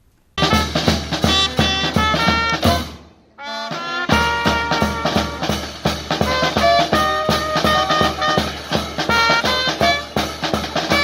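A small street band of trumpet, saxophone, bass drum and snare drum playing a tune, with a steady drum beat under the horns. The music breaks off briefly about three seconds in and then carries on.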